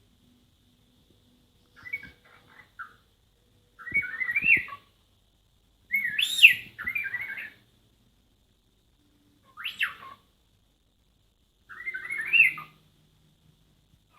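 Cockatiel whistling and chirping in short warbling bursts that imitate R2-D2's droid beeps, a burst every two seconds or so. The loudest comes about six seconds in, with a sharp rising sweep.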